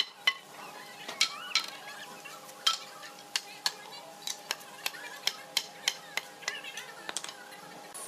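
Irregular sharp clicks and knocks of wooden frame parts and hand tools being handled, a couple a second, over a faint steady hum.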